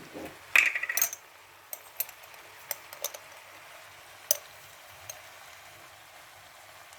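Minced meat (kefta) frying in oil with a faint steady sizzle. A spoon knocks and scrapes against the pan several times, loudest about half a second to one second in, with single clicks until about four seconds in.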